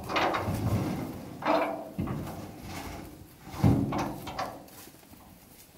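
Sawn wooden planks being slid off a truck bed and knocking against one another: a handful of separate wooden clunks and scrapes, quieter near the end.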